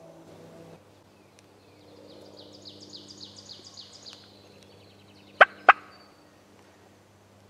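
Wild turkey calling: two sharp, loud calls in quick succession about two-thirds of the way through. Before them comes a faint, high trill of quick descending notes, about five a second.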